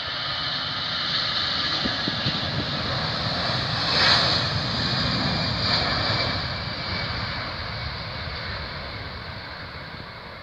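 Jet noise from an Airbus A320's two CFM56 turbofans at takeoff thrust during the takeoff roll. The roar swells, peaks about four seconds in, then slowly fades as the jet moves away.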